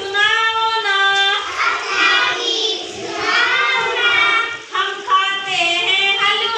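A child singing in a high voice, one voice alone, with long held and gliding notes.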